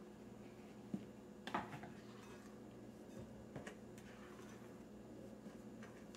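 Faint, occasional soft knocks and scrapes of a silicone spatula and a plastic bowl against a glass mixing bowl as flour is folded into cake batter, over a steady low hum.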